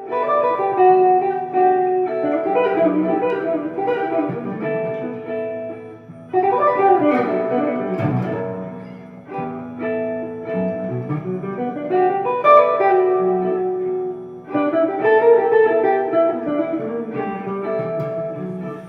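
Fender Jaguar electric guitar playing an unaccompanied jazz passage of single-note lines and chords, in three phrases that break off about six and fourteen seconds in.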